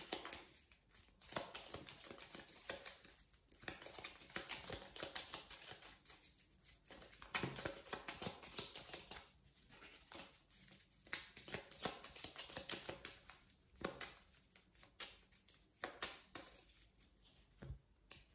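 Oracle card deck being shuffled by hand: faint soft rustling and quick clicks of cards, coming in irregular runs with short pauses.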